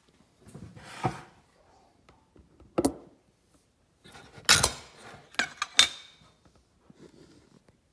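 Dishes and metal utensils clattering: a handful of separate knocks and scrapes, the loudest clustered about four and a half to six seconds in.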